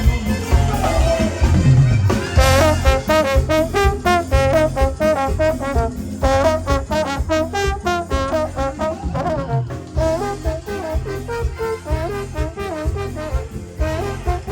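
Lively instrumental band music: horns play quick melodic runs over a steady, pulsing bass line.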